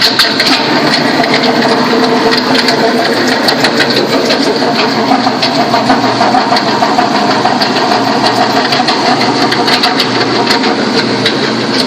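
Toyota Sequoia's 4.7 V8 running with a steady mechanical rattle and rapid, irregular ticking. This is the noise of a bad fan bracket idler pulley, which sounds like a failing water pump.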